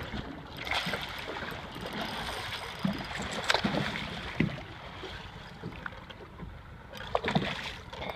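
Choppy water washing against a small boat, with wind on the microphone. A few sharp splashes come from a hooked bluefish thrashing at the surface, the strongest about three and a half seconds in and another near the end.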